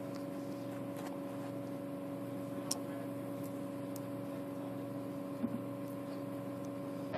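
A steady mechanical hum with a few faint, short clicks scattered through it.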